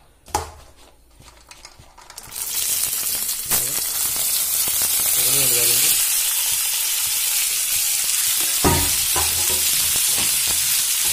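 Dried maize kernels hitting hot oil in a karahi: a sudden loud sizzle starts about two seconds in and carries on steadily, with a few knocks as the kernels are poured and stirred.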